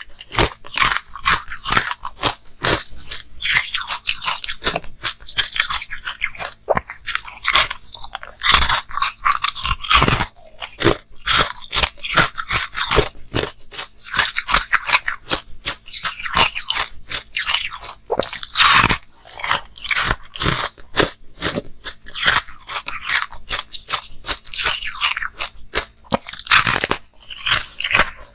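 Close-miked crunching of a hard frozen chunk being bitten and chewed, with rapid crackly crunches all through and a few sharper bites standing out.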